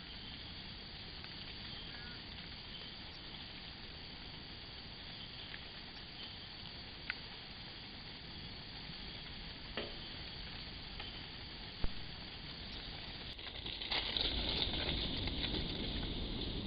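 Steady hiss from a trail camera's built-in microphone, with a few faint sharp clicks. About fourteen seconds in the hiss gets louder and rougher.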